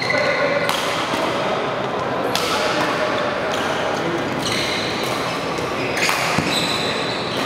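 Badminton rally: sharp racket strikes on a shuttlecock about every second and a half, with brief squeaks after some of them, over the steady noise of a large sports hall.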